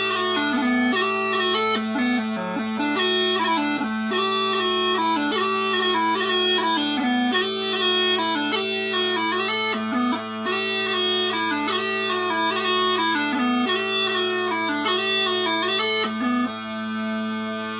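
Quietpiper small pipes by Robert Felsburg playing a tune on the chanter over two steady drones, both tuned to A. The tune closes on a held note near the end.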